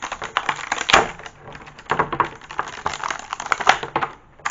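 Clear plastic toy packaging crinkling and crackling as it is handled and worked off a toy egg: a dense run of irregular crackles and snaps, loudest about a second in.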